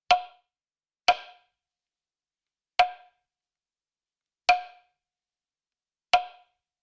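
Five sharp, hollow knocks like a wood block, each with a short pitched ring. The first two come a second apart, then the rest follow about every second and a half.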